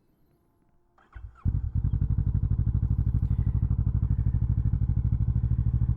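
2017 Kawasaki Vulcan 650 S parallel-twin engine being started: a brief crank about a second in, then it catches and settles into a steady, evenly pulsing idle through an aftermarket CS Racing exhaust.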